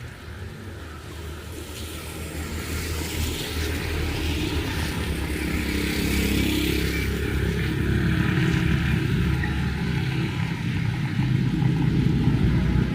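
A motor vehicle's engine running and growing louder over the first half, as if approaching, over the steady hiss of heavy rain.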